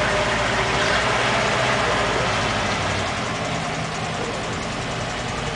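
Steady low engine hum, like a vehicle idling, over a constant background of outdoor noise.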